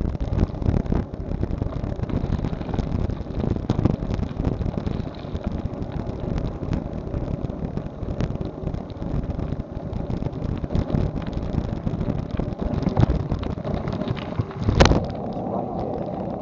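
Bicycle ride picked up by a handlebar-mounted action camera: constant rattling and knocking from the loose, wobbling camera mount over rumbling wind and road noise. Near the end there is one much louder knock as the camera flops back in its socket, and the noise turns steadier afterwards.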